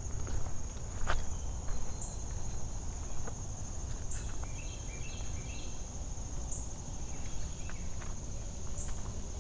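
Summer insect chorus, a steady high-pitched buzz, over a low rumble of wind on the microphone. A few faint clicks, and a short string of chirps about four to five seconds in.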